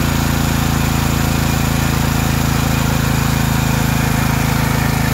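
Generac MegaForce 6500 portable generator's engine running steadily and slowly dropping in speed from its governed no-load speed toward idle, because the idle control has just been switched on.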